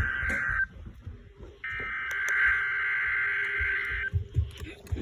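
NOAA Weather Radio SAME digital header bursts for a required weekly test, heard over a weather radio receiver: shrill buzzing data tones. The tail of one burst ends just after the start, then after about a second's pause a second burst runs for about two and a half seconds.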